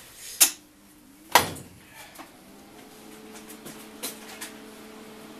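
Metal parts knocked and set down on a steel worktable: two sharp clanks about half a second and a second and a half in, the second ringing briefly, then a few lighter taps. A faint steady hum starts about halfway through.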